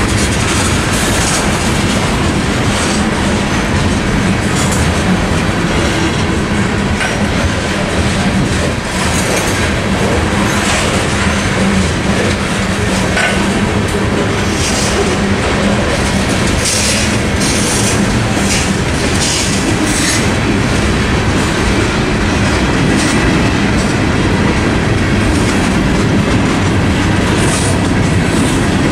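Freight train cars rolling past at a grade crossing: a steady, loud rumble of steel wheels with rhythmic clickety-clack over the rail joints.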